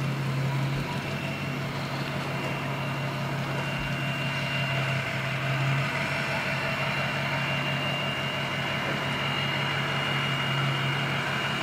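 Pickup truck engine idling as it tows a boat on its trailer off the ramp: a steady low hum with a faint high whine over it.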